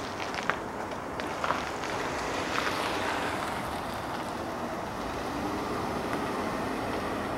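A car driving along the street and away, a steady engine and tyre noise, with a few faint clicks early on.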